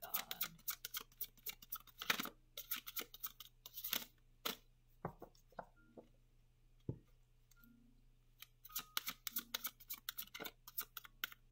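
Deck of tarot cards being shuffled by hand: quick, irregular flicking and clicking of cards. It thins out for a few seconds in the middle, with a couple of duller taps, then picks up again.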